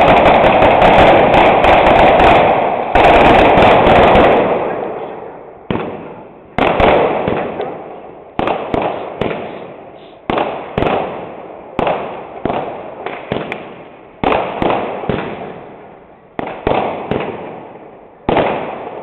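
Mascletà firecrackers going off: a dense, continuous roll of bangs for about the first four seconds, then separate heavy bangs every half second to a second and a half, each echoing off the surrounding buildings.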